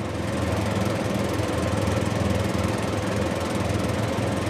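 Heavy-haul MAN truck's diesel engine running steadily as it pulls a low-loader trailer carrying a 100-ton excavator, a low hum that grows a little louder in the first second.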